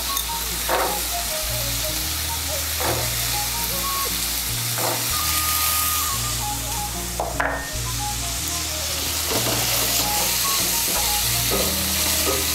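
Soaked chickpeas sizzling in hot oil and spice paste in a steel kadai, stirred with a wooden spatula that scrapes the pan now and then. Soft background music with a stepping bass line runs underneath.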